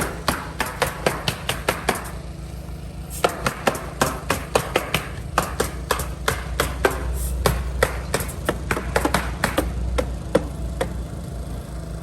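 Hammering: a fast run of sharp strikes, about four a second, that breaks off about two seconds in, resumes, and thins to scattered strikes later on.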